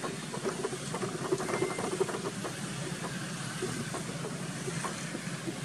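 Steady outdoor background rumble, with scattered light crackles and rustles of monkeys' feet in dry leaf litter, thickest in the first half and thinning out as the monkeys settle.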